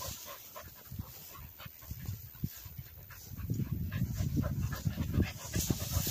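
Cocker spaniel panting close by, with louder low rustling from about halfway.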